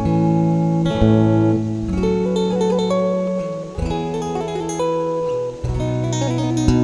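Background music: guitar playing held chords, with a new chord struck every second or two.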